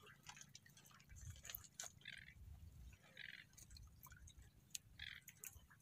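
Faint rustling and scattered light clicks of a clear monofilament sinking net being hauled and handled by hand in a boat, over a low steady rumble.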